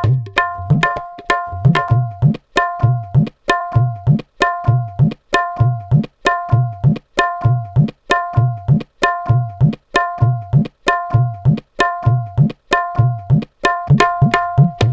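Tabla playing a steady, repeating rhythm. Ringing strokes on the treble drum alternate with deep bass-drum strokes that bend upward in pitch, and the playing cuts off abruptly at the end.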